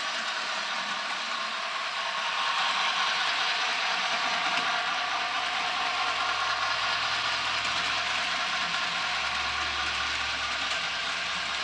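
HO scale Bachmann Spectrum 2-6-0 model steam locomotive and its freight cars running on the track: a steady mechanical whirring and rattling of motor, gears and wheels. A low hum joins in near the end as the train passes close.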